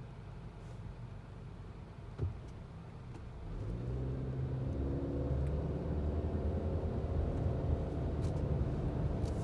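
Car engine and road rumble, growing louder about three and a half seconds in as the engine picks up speed, with one short knock a couple of seconds in.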